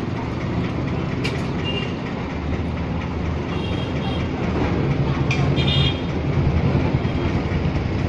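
Street traffic: a steady engine rumble with a few short horn toots, and two sharp clicks.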